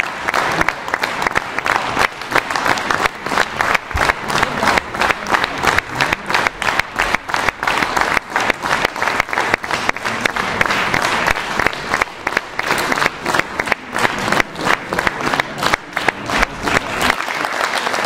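Theatre audience applauding steadily, with the cast on stage clapping along.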